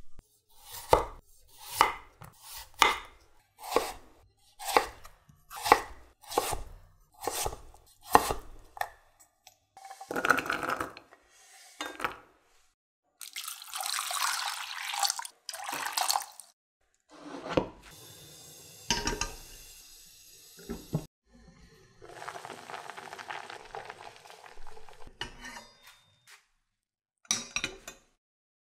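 A knife chops a peeled potato on a wooden cutting board with about ten sharp chops roughly a second apart. Then water is poured into a pot over the diced potato, and the pieces are drained through a mesh strainer.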